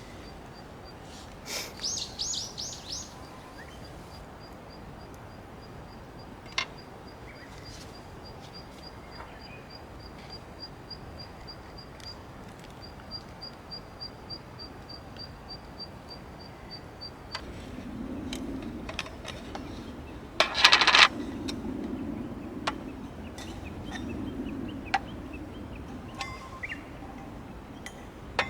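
Birds calling outdoors: a quick run of about five high chirps early, then a single high note repeated evenly several times a second for about half the time. Later a low rumble rises, with one loud short rustling noise, the loudest sound, a little past two-thirds of the way in.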